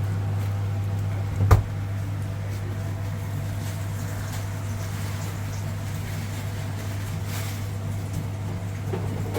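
Steady low electrical hum of running kitchen equipment, with a single sharp knock about one and a half seconds in.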